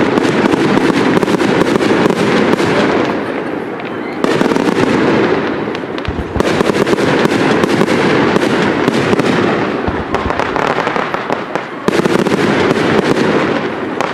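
Fireworks display: shells bursting in dense, overlapping crackling salvos, with a fresh volley about four, six and twelve seconds in and a few deep booms.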